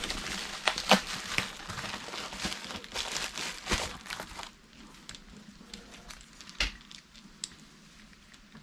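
A pink bubble-wrap bag crinkling and crackling as it is pulled open and the contents are drawn out, with sharp crackles for the first four seconds or so. After that come a few light clicks as the small plastic adapter box and its cable are handled.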